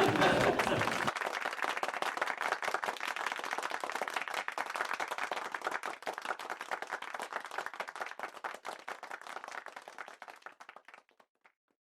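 Small audience clapping, thinning out and fading over about ten seconds, then stopping.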